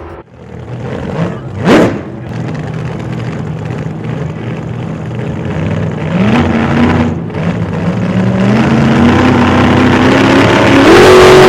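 Cammed Hemi V8 of a RAM 1500 with a cut-out exhaust, running and being revved: a quick sharp blip near two seconds, then a steady run that climbs in pitch, stepping up a little past the middle and rising steadily through the last few seconds.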